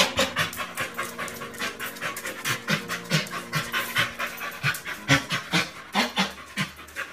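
A dog panting hard with its mouth open, quick even breaths one after another, a sign of stress at the vet.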